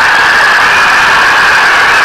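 Large crowd cheering and shouting together in a dense, steady din with no single voice standing out.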